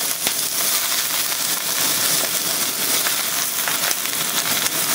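Baby bok choy sizzling as it sears in hot oil in a wok on high heat, with ginger and garlic: a steady hiss with scattered small crackles as steam comes off the leaves.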